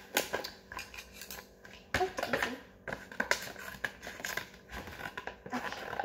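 Scissors cutting into a toy's card packaging: a string of irregular snips and scrapes.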